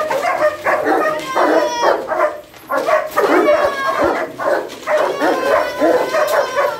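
Several kennelled dogs barking, yipping and whining at once, with overlapping calls that rise and fall in pitch and barely let up. They are greeting their returning handler excitedly.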